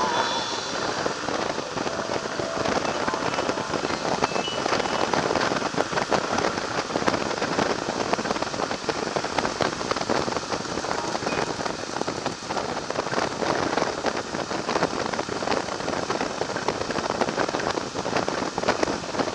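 Wind rushing and crackling over the microphone of a camera on a moving motorcycle at road speed, with road noise underneath.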